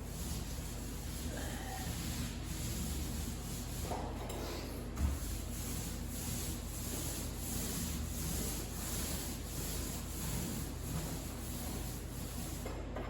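Repeated back-and-forth rubbing strokes over drywall, a hand tool working the joint compound on the wall seams.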